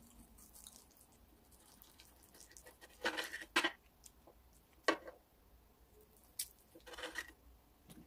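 Quiet eating sounds: a few short clicks and scrapes of cutlery on a dish and mouth sounds, with quiet gaps between them.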